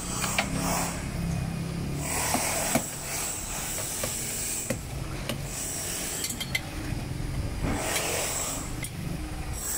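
Hands pressing and rubbing dough across a flour-dusted board: several soft swishing rubs of about a second each, with a few light taps, over a steady background hiss.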